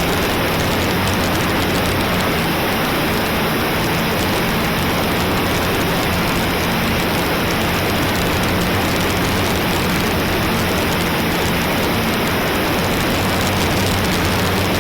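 Loud steady wind rush over a low, even drone from an electric RC plane's motor and propeller, the AtomRC Dolphin Pro flying in strong gusty wind.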